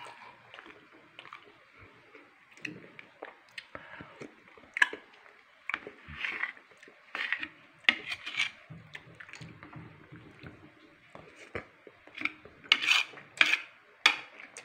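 A spoon clinking and scraping against a ceramic bowl and plate while eating, in irregular light taps, with a few sharper, louder clinks in the second half.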